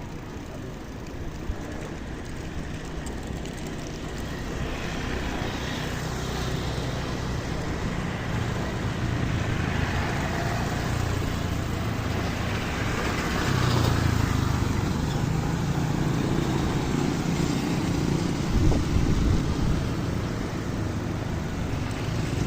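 Road traffic passing close by: a steady wash of engine and tyre noise that builds gradually and is loudest in the last third.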